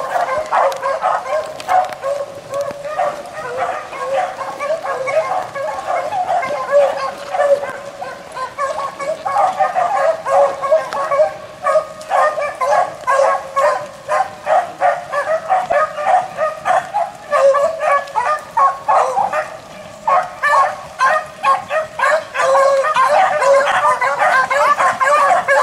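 A pack of beagles baying continuously, many voices overlapping in quick repeated cries, as hounds do when running a rabbit's scent trail.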